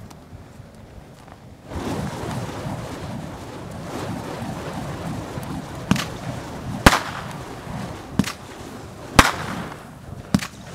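Fire props just lit and burning with a steady rushing flame noise that starts about two seconds in. Five sharp cracks break through it over the second half, roughly a second apart, two of them louder than the rest.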